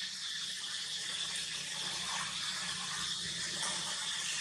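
Steady outdoor background hiss with a faint steady hum underneath; no monkey calls stand out.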